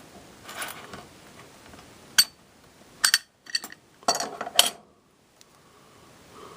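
Small metallic clicks and clinks from handling an opened warded Master padlock and small metal tools: a sharp click about two seconds in, a quick cluster of clicks a second later, and a longer scraping rattle ending in a click near the middle.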